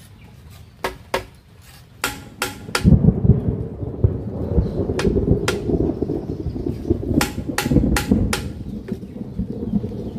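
Thunder rumbling, starting about three seconds in and continuing loudly as the main sound. About a dozen sharp knocks from a hammer on the bamboo frame sound through it.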